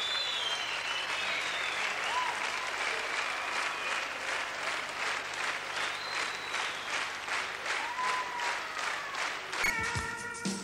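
Large theatre audience applauding, with a few whistles. The clapping turns into steady rhythmic clapping in unison, about two to three claps a second. A band chord breaks in just before the end.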